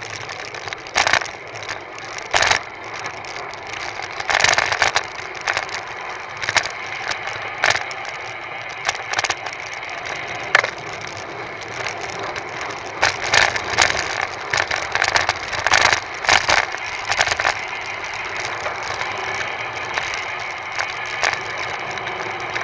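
Road bicycle descending fast on asphalt, heard from a camera riding on the bike: a steady rush of wind and tyre noise, broken by frequent sharp rattles and knocks from bumps in the road, thickest past the middle.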